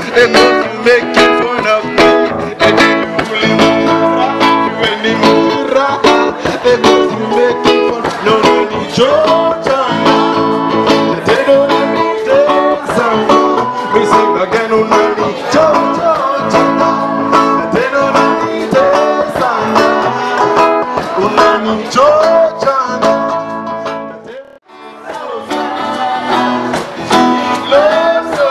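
A live band plays guitar-led music with a singer. The music cuts out briefly about 24 seconds in, then picks up again.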